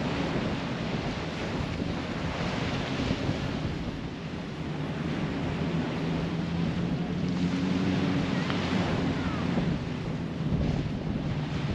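Small waves washing onto a sandy beach, the surf swelling twice, with wind buffeting the microphone. A steady low hum runs underneath.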